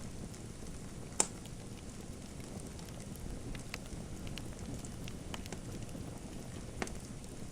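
Wood fire in a fireplace crackling: a steady low hush of flames with scattered small pops, one sharp loud pop about a second in and another near the end.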